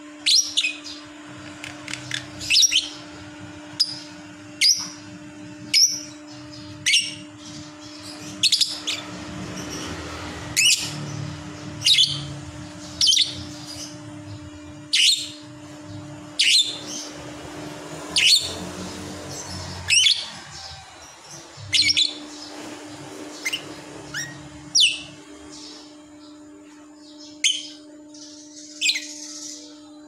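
Lovebird giving short, sharp, high chirps, one about every second, while resting with its head tucked back into its feathers. A steady low hum runs underneath.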